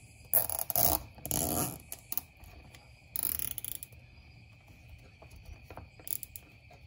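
A nylon zip tie being pulled through its lock: quick runs of ratcheting clicks in three short bursts, mixed with the rustle of a plastic wiring loom being handled.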